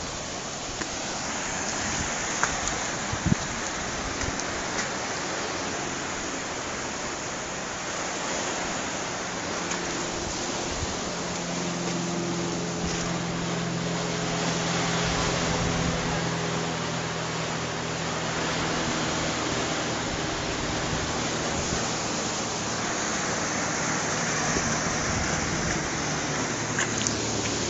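Ocean surf washing over a lava-rock shore, a steady rushing noise, with a few light knocks in the first few seconds. A faint low hum joins from about eleven seconds in.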